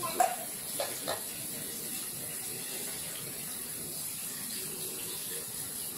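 Kitchen tap running onto cooked pasta in a plastic colander, the water splashing into a stainless steel sink. A few short knocks in the first second or so, the loudest just after the start.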